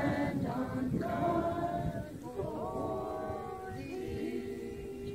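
Choral singing as background music, settling into a long held note near the end.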